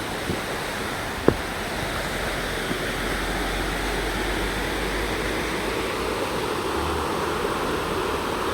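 Steady rushing water from a rainforest creek, with one sharp knock about a second in.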